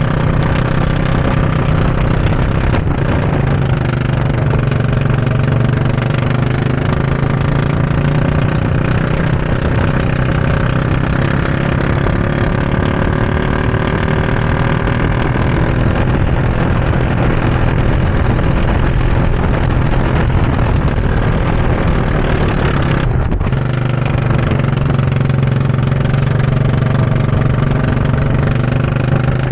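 Go-kart engine heard from the driver's seat at racing speed, its pitch rising and falling with the throttle through the corners. The sound dips briefly about three quarters of the way through.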